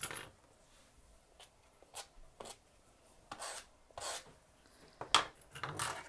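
A comb drawn in short strokes through a Maltese's long silky coat, about ten quick brushing swishes at an uneven pace, working a mat out of the hair.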